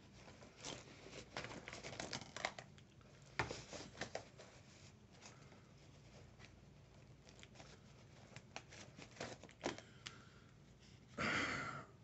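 Rustling and small clicks of a fabric sling bag and its contents being handled as a hand rummages through the pockets, with a louder rustle near the end as an item is pulled out.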